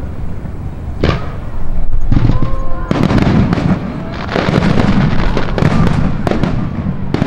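Aerial firework shells bursting: several sharp booms, with long stretches of dense crackling between them.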